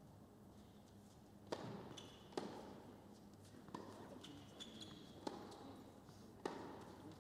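Tennis ball struck by rackets in a rally on an indoor hard court: a serve and then about five sharp hits, roughly a second or so apart. Short high shoe squeaks come between the hits.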